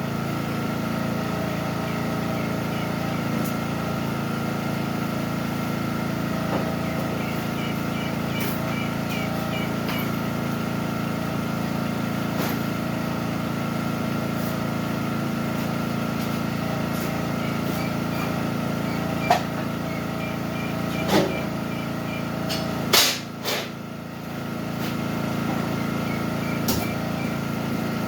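Portable generator engine running steadily. A few sharp knocks and bangs come about two-thirds of the way in as it is handled.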